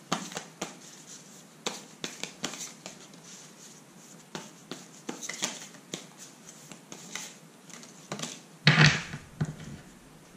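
Tarot cards being shuffled and handled on a table: a run of light flicks and clicks, with a louder rustle about nine seconds in.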